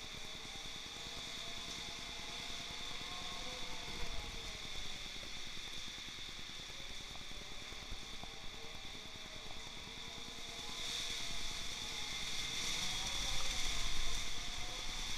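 Steady hiss of heavy typhoon rain and wind, swelling louder for a few seconds near the end, with low rumbles of wind against the microphone now and then.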